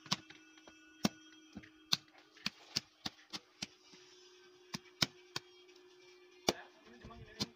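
Hands slapping and kneading lumps of wet clay: sharp slaps at an uneven pace, over a faint steady hum.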